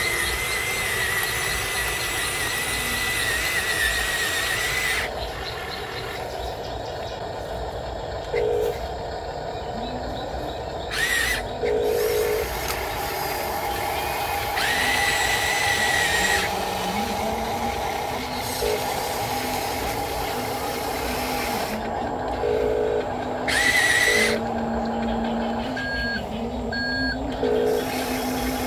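Metal RC excavator's electric motors whining as the boom, arm and bucket move: a high steady whine for the first few seconds, then shorter whines and whirs that start and stop, with a lower motor hum later on.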